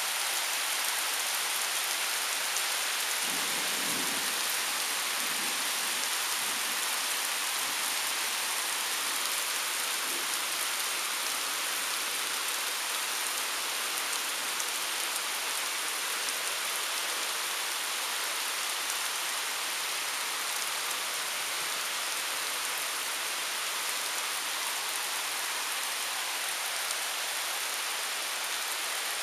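Heavy rain pouring steadily onto trees and the ground, a constant hiss, with a brief low rumble of thunder a few seconds in.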